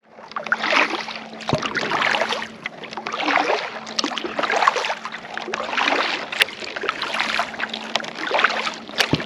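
Kayak paddle strokes dipping and splashing in the water. A swell of splashing comes about every second and a half, with a couple of sharp clicks.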